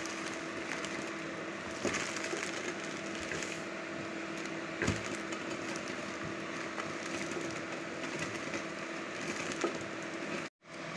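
Wooden rolling pin rolled back and forth over whole coriander seeds in a plastic bag: a continuous crackle of seeds splitting in two and plastic crinkling, with occasional sharper cracks. A faint steady hum runs underneath, and the sound cuts out briefly near the end.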